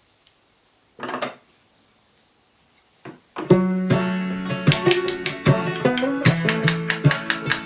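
Near-quiet workbench handling with a brief scrape about a second in, then plucked-string music with sharp percussive strikes starts about three and a half seconds in and carries on.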